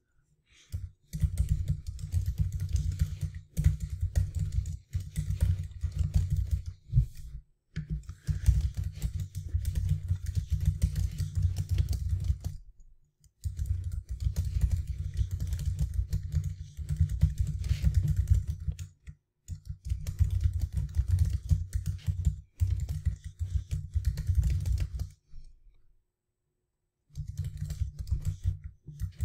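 Typing on a computer keyboard: runs of quick keystrokes, heard mostly as dull low taps, broken by short pauses and a longer pause near the end.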